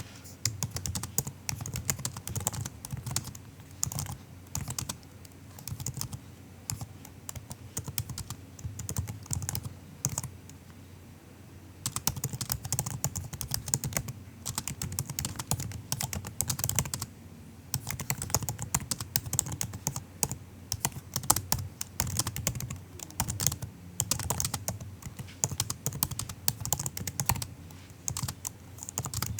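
Typing on a MacBook's built-in laptop keyboard: soft, quick key clicks in bursts, with short pauses, the longest about a second near the middle.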